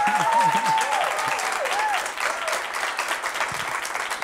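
Audience applauding, with a voice or two rising over the clapping in the first couple of seconds.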